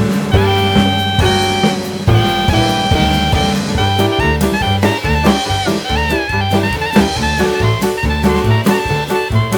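Background jazz music with saxophone, a walking bass line and a steady drum-kit beat.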